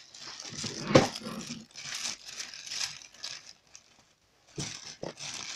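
Plastic blister packaging and card backing crinkling and rustling as they are handled and pushed aside, with a sharp knock about a second in.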